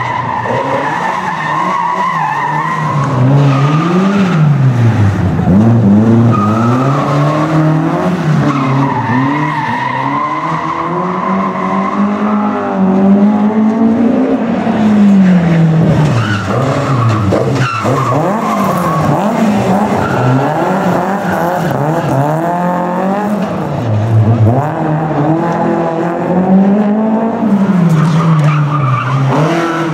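Rally car engine revving up and down again and again as the car drifts and slides, with its tyres squealing at times.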